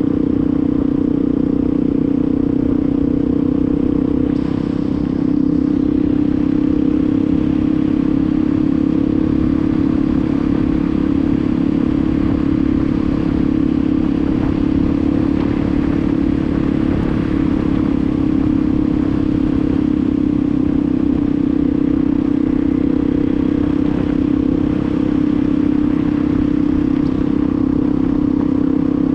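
Yamaha WR250R's single-cylinder engine running at a steady speed while riding, over a rough low rumble of wind and road noise.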